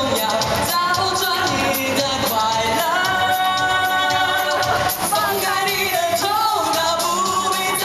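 A male singer sings live into a handheld microphone over a loud pop backing track with a steady beat, holding one long wavering note about halfway through.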